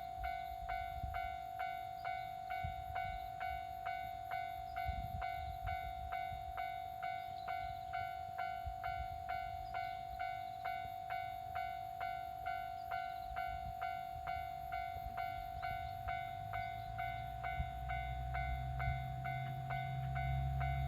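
Japanese level-crossing warning bell ringing about twice a second over a steady tone. About three-quarters of the way in, the low rumble of the approaching diesel railcar joins it.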